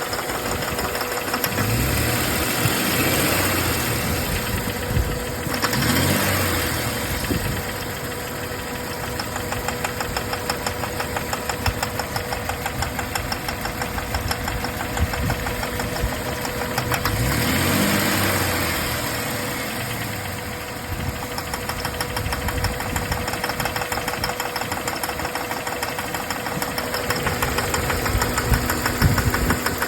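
2004 Jeep Grand Cherokee WJ 4.0 straight-six running with a fast, steady ticking knock from the engine whose cause the owner doesn't know. It is revved up and back down twice, once early and once past the middle.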